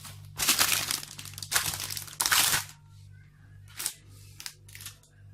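Plastic packaging crinkling and rustling as it is handled, in three loud bursts over the first few seconds, then a few short, lighter rustles.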